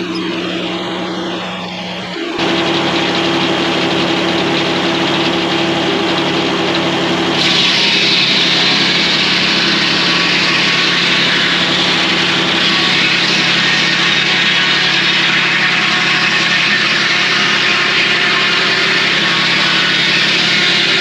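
Circle sawmill running with a steady engine hum. It gets abruptly louder a couple of seconds in, and a loud, high rushing noise joins about seven seconds in and holds steady.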